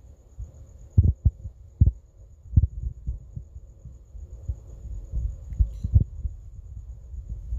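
Irregular low thumps and rumble on the microphone, a few sharp knocks at first and coming more often toward the end.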